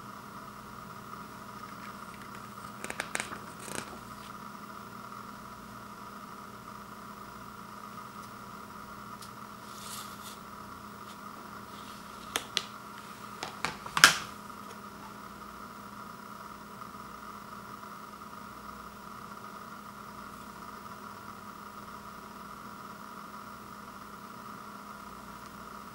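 Handling of a CD digipak and its paper booklet: brief rustles of pages, then a few sharp plastic clicks as a CD is pried off its tray hub, the loudest a snap about halfway through. A steady low hum sits underneath.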